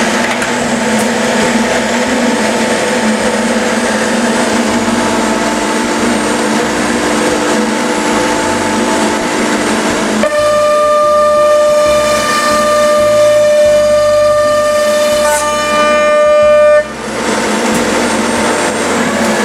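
Weeke Optimat BHC-350 CNC machining center running a program on a workpiece, with steady machine noise. About ten seconds in, a loud high whine of steady pitch joins it for about six seconds and then cuts off suddenly.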